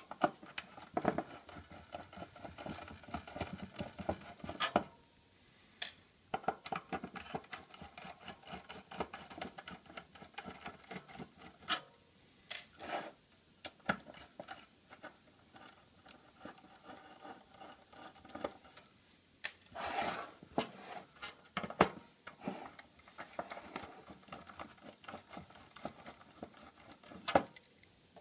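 Screwdriver backing out the screws of an HP access point's circuit board. Stretches of rapid clicking and scraping are broken by a few sharp single clicks.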